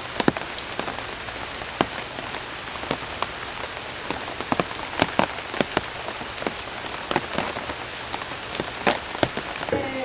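Steady rain hiss with many irregular, sharp drip strikes landing close by.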